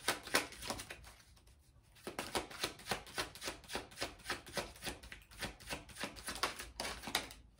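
Tarot deck being shuffled by hand: a quick run of soft card clicks and slaps, several a second, with a short lull about a second in.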